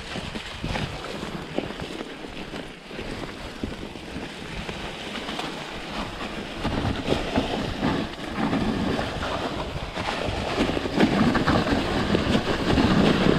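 Specialized Enduro Comp 2021 mountain bike riding a wet, muddy trail: wind rushing over the microphone, tyres working through mud, and a steady patter of rattles and knocks from the bike. It gets louder in the second half.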